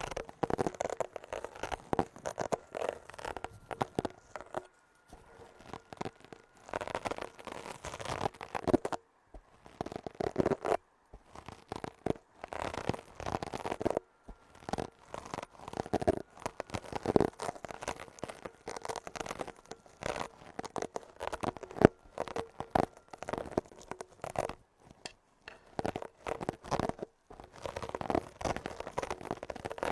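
Close-miked ASMR scratching and rubbing: irregular gritty strokes that come in clusters, with brief pauses between them.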